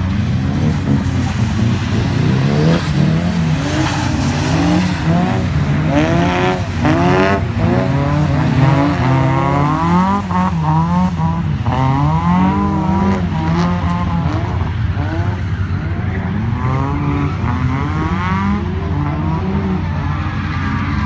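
Toyota AE86 Corolla's four-cylinder engine revving up and down over and over as the car drifts on a wet skid pan, its pitch rising and falling about every second.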